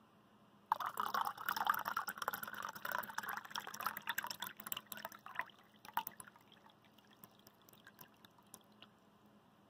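Water poured into a metal cup holding an ice cube, starting suddenly about a second in and splashing for about five seconds, then tailing off into scattered drips.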